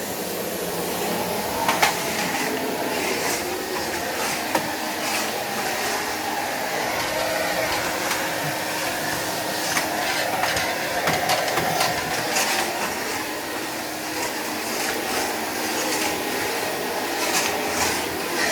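Miele S 224 vacuum cleaner motor running steadily with a constant rush of air and a steady hum, with occasional short clicks and knocks.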